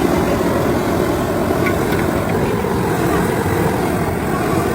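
Heavy factory machinery running with a steady, loud, low drone.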